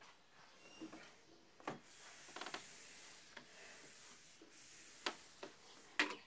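Whiteboard being wiped clean by hand: soft rubbing strokes across the board, with a few sharp taps and knocks.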